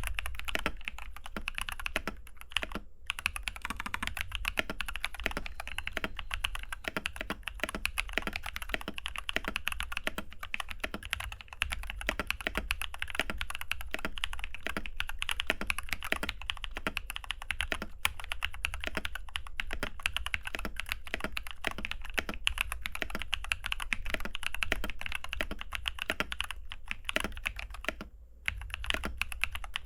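Steady, fast typing on a mechanical keyboard fitted with Glorious Panda tactile switches: a continuous run of keystroke clacks, broken by brief pauses about three seconds in and near the end.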